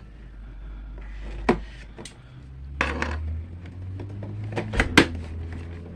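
A cardboard and plastic package being cut open with an X-Acto craft knife: scattered clicks, scrapes and knocks of the knife and the box being handled, the sharpest click about five seconds in.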